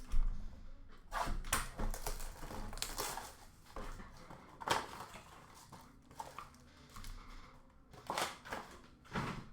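Trading cards and foil pack wrappers being handled: irregular rustles, soft slaps and crinkles as cards are flipped, slid and sorted, with the sharpest sound just after the start.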